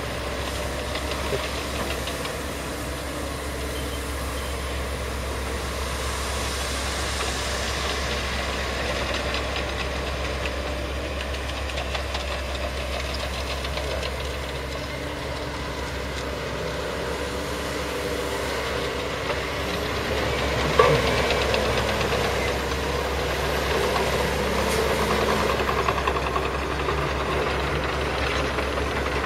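Heavy diesel plant at work: a tracked excavator and an articulated dump truck running, a steady engine drone that grows a little louder in the second half. A single sharp metallic clank sounds about 21 seconds in.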